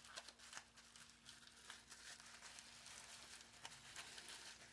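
Faint crinkling and rustling of toy-car packaging being handled, with scattered small clicks.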